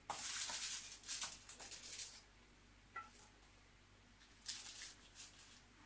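Wooden spatula scraping and sliding under crisp puff-pastry parcels on baking paper in a metal oven tray, a papery rustling scrape. There is a long one over the first two seconds and another about four and a half seconds in.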